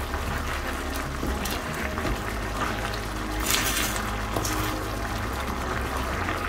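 Liquid sounds from a pan of chicken livers cooking in peri-peri sauce, with a louder hiss about three and a half seconds in, over background music.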